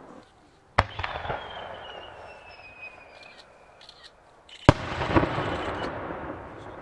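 Aerial firework shells bursting: two sharp bangs about four seconds apart, each trailed by echoing rumble and crackle. A thin whistle falls in pitch for a couple of seconds after the first bang.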